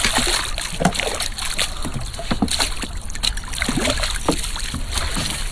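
Water splashing and dripping against a kayak, with scattered knocks and rustles, while a just-landed smallmouth bass is handled.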